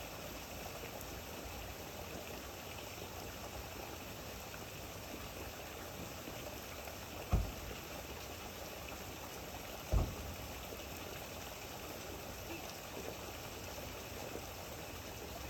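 Steady rain falling, an even hiss, with two dull low thumps about two and a half seconds apart near the middle.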